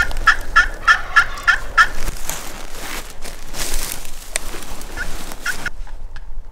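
A run of about seven turkey yelps, evenly spaced over the first two seconds, followed by a few seconds of rougher, noisier sound with a couple of short notes.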